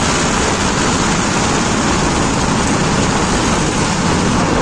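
Tractor engine running steadily while the tractor drives, heard from the driver's seat, with a steady rushing noise.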